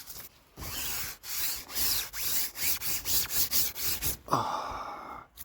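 Camping gear being packed up by hand: a run of quick rustling, scraping strokes, about three or four a second, then a longer rustle near the end.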